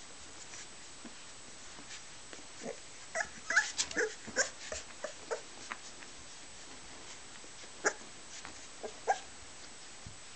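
Young Boxer puppies whimpering and squeaking in short, high cries as they tussle, with a cluster of squeaks about three to five seconds in and two sharper yips later on.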